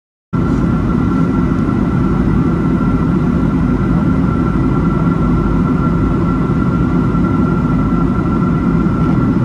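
Cabin noise of a Boeing 757-200 airliner in flight, heard at a window seat over the wing: the steady rumble of the jet engines and rushing air, with a faint steady high whine on top, as the plane starts its descent. It cuts in suddenly just after the start.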